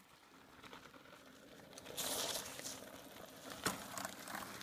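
Mountain bike rolling over a dirt and gravel trail: tyres crunching with scattered clicks and rattles from the bike, and a short hiss about two seconds in.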